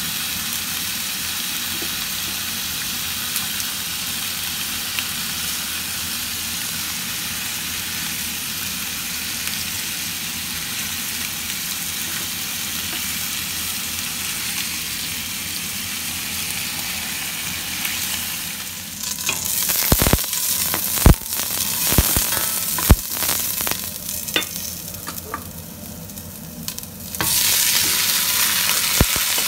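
Chicken pieces sizzling in oil in a nonstick frying pan, a steady hiss. About two-thirds of the way through come sharp clacks of tongs against the pan as the pieces are turned. Near the end a louder, steady sizzle as the browned chicken fries with diced onion in a steel pot.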